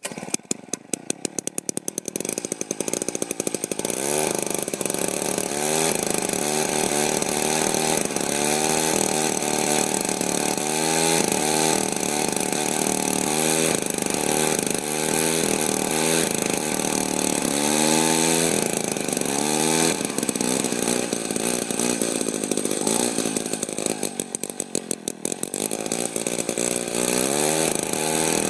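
Gas-powered ice auger engine catching on a pull-start, then running and being revved up and down over and over. The level dips briefly about 24 seconds in before it picks up again.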